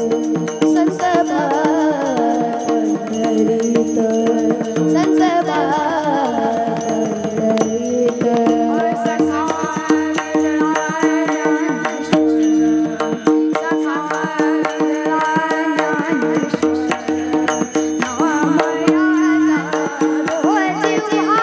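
Varkari bhajan music: a steady held drone under a wavering melodic line, with drum and small-cymbal strokes throughout.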